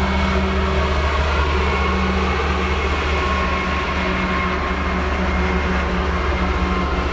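Union Pacific diesel-hauled manifest freight train running steadily: a continuous low rumble with a few steady tones over it.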